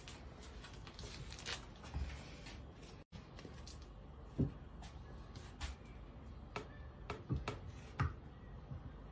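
Kitchen knife cutting sausage on a wooden cutting board: a handful of sharp, irregular knocks of the blade meeting the board, starting about four seconds in. Before them, faint rustling of hands handling the food.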